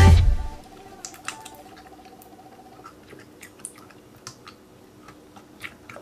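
Background music fades out in the first half-second. Then come soft wet squishes and small sticky clicks, scattered irregularly, as fingers stir and knead slime in a glass bowl.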